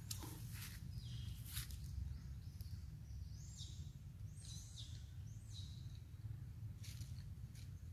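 Outdoor ambience: a steady low rumble, with a few faint clicks and a series of short, high chirping calls that fall in pitch, about three to six seconds in.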